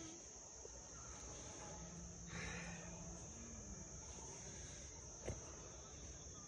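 Insects buzzing steadily as one continuous high-pitched drone, with a single faint click about five seconds in.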